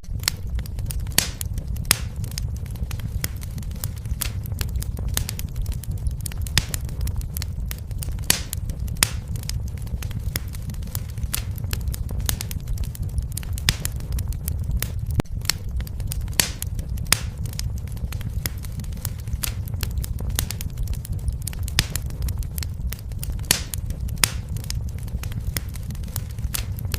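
Wood fire burning with a steady low rumble and frequent irregular sharp crackles and pops.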